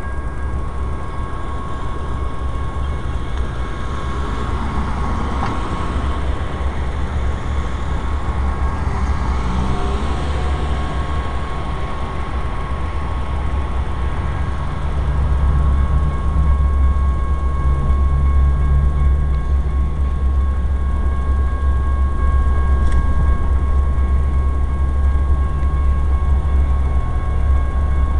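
Canadian National freight train rumbling at a road crossing, growing louder from about halfway through. A steady ringing from the crossing signal carries over it.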